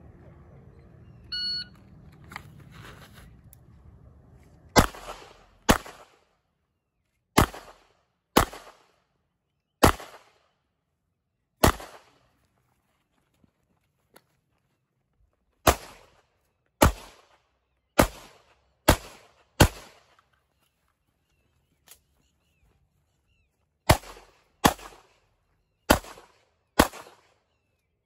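A shot timer beeps about a second in. A handgun then fires about fifteen shots: pairs and single shots at first, then quicker strings of four or five, with pauses of a few seconds between them.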